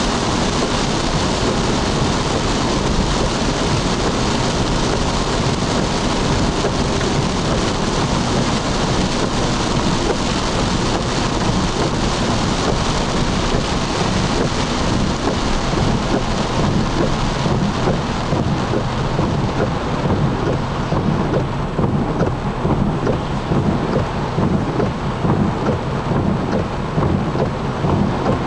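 Heavy rain on a moving car, heard from inside the cabin: a steady noise of rain on the roof and windshield and tyres on the wet road, with a deep rumble underneath. The high hiss thins out about two-thirds of the way in.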